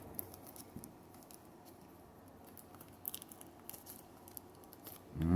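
Faint crinkling and scattered small clicks of a trading-card pack wrapper being torn open and handled by hand, with a few sharper ticks about three seconds in.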